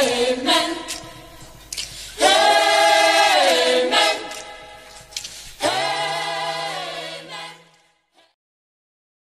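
Logo-intro jingle of voices singing a cappella in chorus: three held sung chords, the last fading out about eight seconds in.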